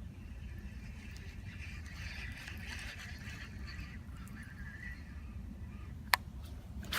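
Outdoor background with a steady low rumble and faint warbling bird calls, then a single sharp click about six seconds in.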